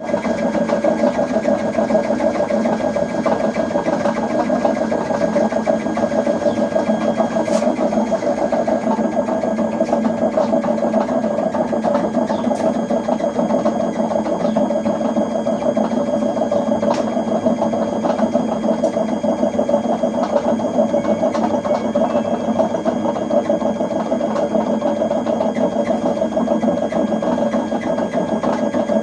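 LG washing machine running with a loud, steady, fast mechanical rattle and drone, an abnormal noise that marks a fault needing repair. A couple of light clicks sound over it.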